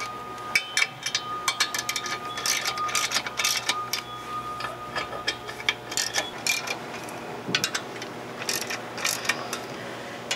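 Hand ratchet wrench clicking in quick runs as the clutch pressure plate bolts are run down by hand.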